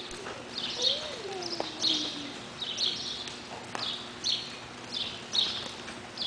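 Small birds chirping, short high downward chirps repeating about every half second to a second.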